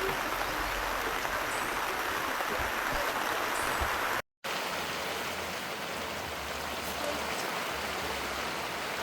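Steady rushing of a mountain stream flowing over rocks, with the sound cutting out completely for a moment about four seconds in.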